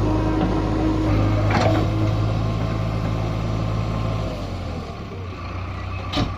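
JCB 3DX backhoe loader's diesel engine running steadily, easing off about four seconds in, with a short knock partway through and another near the end.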